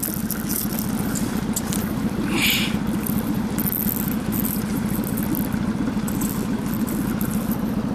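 Outboard motor idling steadily at low revs, with a short noise about two and a half seconds in.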